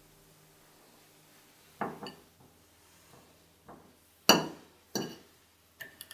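Metal fork clinking against a plate while eating: about five sharp clinks, starting nearly two seconds in, the loudest just past four seconds.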